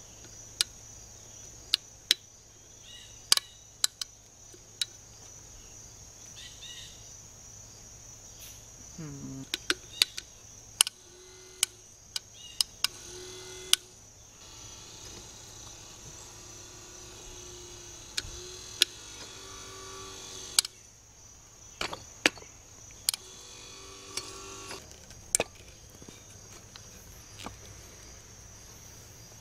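Sharp clicks as the ElectroPal 61A trolling motor's speed and direction switch is worked and tapped, while the motor hums faintly in short stop-start spells; the owner suspects a faulty switch. Crickets chirp steadily behind.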